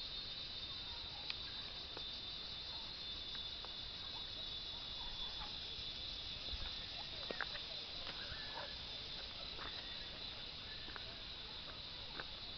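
Steady high-pitched drone of a forest insect chorus, with a few short chirping calls and some soft clicks in the middle and later part.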